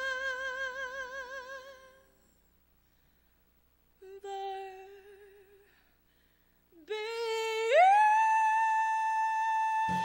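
Unaccompanied female jazz vocal. A held note with wide vibrato fades away, and after a pause comes a short lower note. After another pause she slides up into a long, high, steady note, and the band comes back in right at the end.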